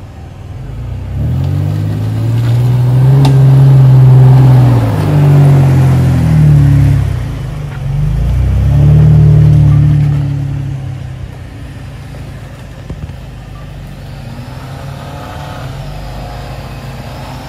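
Mitsubishi Montero's engine revving under load as it climbs a steep dirt hill and passes close by, its pitch rising and falling in several surges for about ten seconds before fading away. A second engine comes up faintly near the end.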